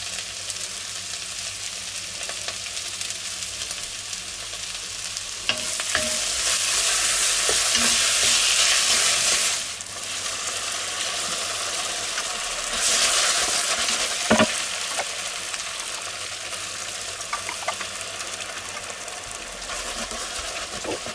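Diced peppers, onions and garlic with tomato paste sizzling in clarified butter in a cast-iron cocotte while a spoon stirs them. The sizzle swells loudly twice as the vegetables are turned, and the spoon knocks against the pot a few times.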